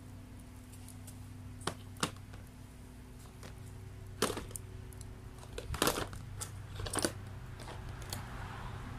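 Wet firewood burning in a homemade secondary-combustion (wood-gas) stove: a handful of sharp crackles and pops, the loudest about four seconds in and around six to seven seconds, over a steady low hum.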